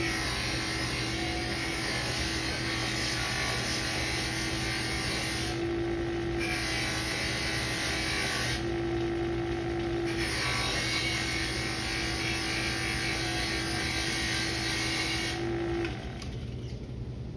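Brass trombone bell being buffed with compound on a spinning cloth buffing wheel driven by an electric motor: a steady hiss of the wheel rubbing the metal over the motor's hum. The hiss drops out twice for a moment and stops near the end as the bell comes off the wheel.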